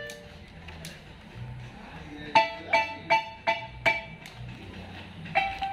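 Guatemalan marimba with hormigo-wood bars struck with mallets. After a pause of about two seconds comes a quick run of five notes, moving back and forth between two pitches, then one more note near the end; each note rings briefly.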